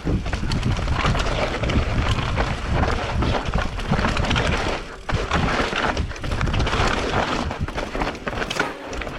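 Mountain bike riding fast down a trail, heard on a GoPro: wind rumbling on the microphone, tyres rolling over dirt and rock, and frame and chain rattling with many small knocks. The noise eases near the end as the bike slows.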